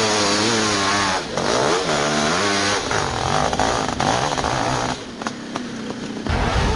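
Two-stroke sport quad engine revving hard on sand, its pitch wavering up and down with the throttle. It drops back briefly about five seconds in, then a deeper rumble comes up near the end.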